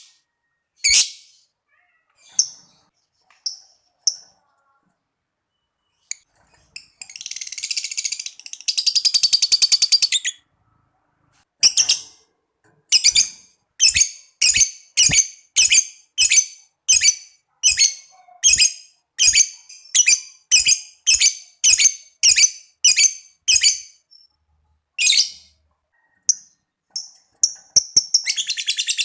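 Lovebird calling in high, sharp shrieks. It gives a few single calls, then a long rapid chattering trill (the 'ngekek'), then a steady run of evenly spaced sharp calls, about one and a half a second. Another long trill begins near the end.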